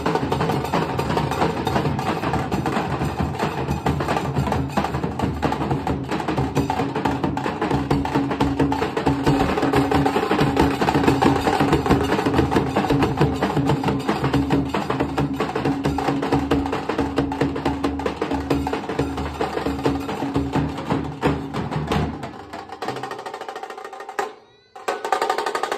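Nasik dhol-tasha troupe drumming: several big dhols struck with sticks and the sharp clatter of a tasha in a fast, dense rhythm. About 22 seconds in the playing thins out, cuts out almost completely for a moment, then comes back in full near the end.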